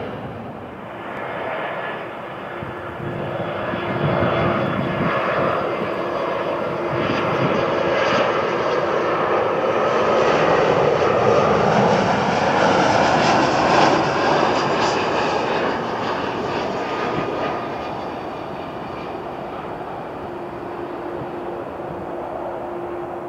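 Jet airliner engine noise: the fading sound of a Boeing 737-700 climbing away after takeoff, then an Airbus A320 on final approach whose engine noise swells to its loudest about halfway through and eases off as it touches down.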